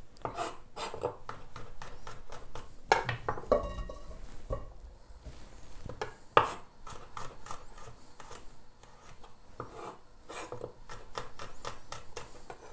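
Chef's knife slicing garlic cloves into thin slices on a bamboo cutting board: a run of quick cuts, each tapping the board, with a few louder knocks.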